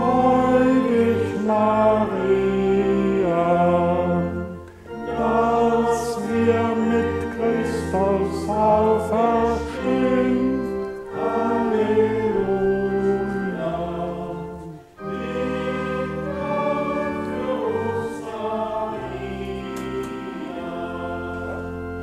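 Voices singing a German Marian hymn with organ accompaniment, with short breaks between phrases about five and fifteen seconds in. Held organ chords carry the last few seconds.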